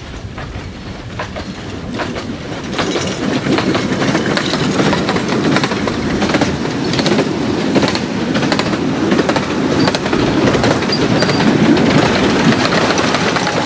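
Narrow-gauge steam train passing close by, its coach wheels clattering over the rail joints. The sound grows louder as the train comes alongside and is loudest near the end, as a second steam locomotive at the rear of the train goes past.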